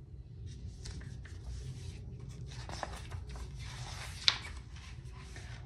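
A hardcover picture book being handled and opened: paper and cover rustling and rubbing, with one sharp click about four seconds in.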